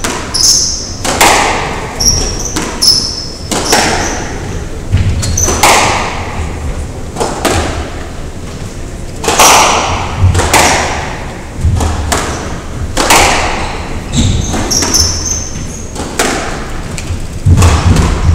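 Squash rally: the ball cracks off rackets and walls about once a second, each strike echoing around the court, with short high squeaks of court shoes on the wooden floor between shots.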